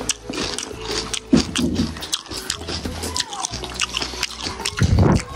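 Crisp pani puri shells crunching and crackling as they are bitten and chewed, in many short, irregular cracks.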